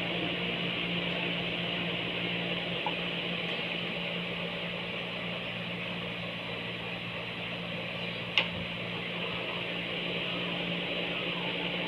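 Steady mechanical hum, like a small electric motor running, with one sharp click about eight seconds in.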